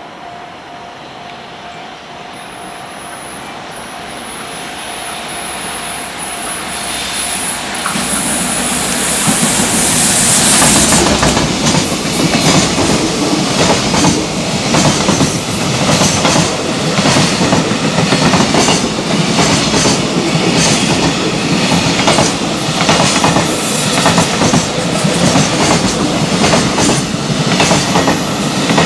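A freight train approaching and passing at speed. Its rumble grows steadily louder over roughly the first ten seconds. After that comes a fast, continuous clatter of the wagon wheels over the rail joints.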